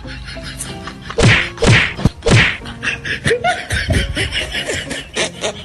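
Slap and whack hits of a staged beating: three heavy whacks about half a second apart, each with a falling swoosh, then a quicker run of lighter hits.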